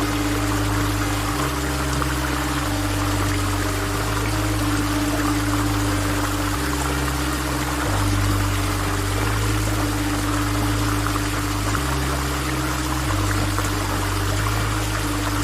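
Steady rush of waterfall water, under background music with a deep bass line that changes note every second or two.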